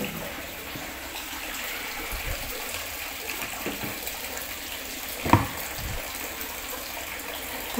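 Steady hiss with no motor hum, and a single soft knock about five seconds in.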